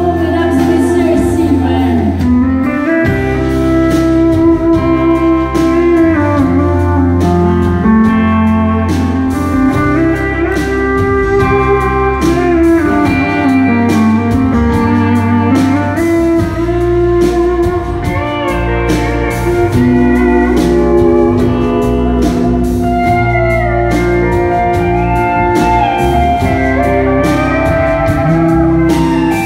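Live country band playing an instrumental break led by a pedal steel guitar, its sustained notes gliding between pitches over bass and a steady beat.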